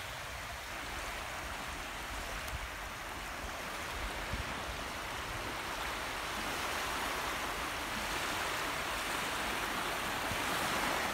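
Small waves washing up on a sandy beach: a steady hiss of surf that grows a little louder toward the end.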